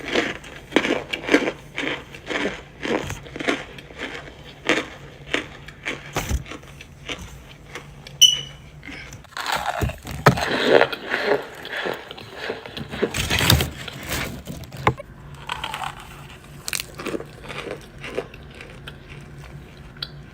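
Cornstarch blocks being chewed close to the microphone: regular crunches about twice a second. Then comes a louder, denser stretch of crunching about ten seconds in, and softer, scattered crunches near the end.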